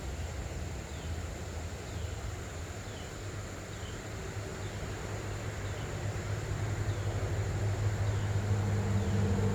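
Outdoor ambience: a short, high, falling chirp repeats about once a second over a low steady rumble that swells near the end.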